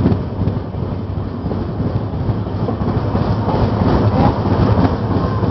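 Moving passenger train's wheels rumbling and clattering over the rails and points, a dense run of knocks over a steady low rumble. It grows a little louder about three and a half seconds in as a suburban EMU train passes close alongside.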